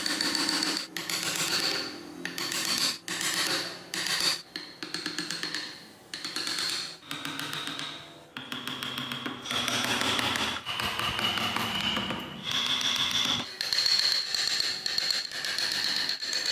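Hand carving gouge cutting into wood in a run of short strokes, each a high-pitched scrape lasting about a second, with brief pauses between cuts.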